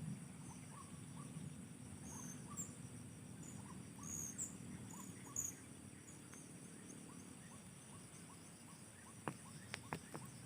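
Faint natural outdoor ambience: a steady insect drone, with scattered short, high bird chirps in the middle and a few sharp clicks near the end.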